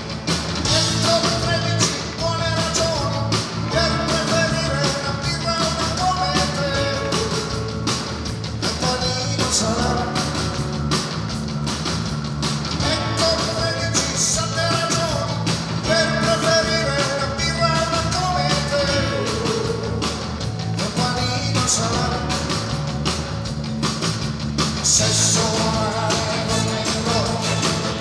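Live rock band playing a song on stage: drums, electric guitars and piano under a male lead singer.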